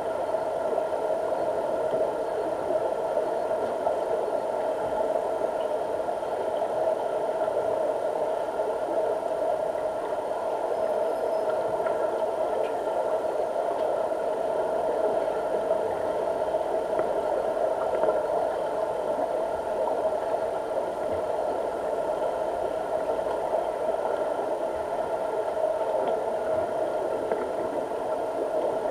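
Steady mechanical hum heard underwater in a deep diving pool, even in level, with a few constant high tones running above it.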